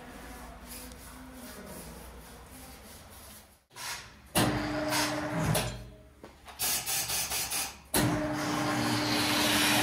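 Tyre changing machine mounting a tyre onto a wheel rim: a low rumble at first, then the motor running in bursts, a steady hum with a broad rushing noise, the longest run starting about eight seconds in.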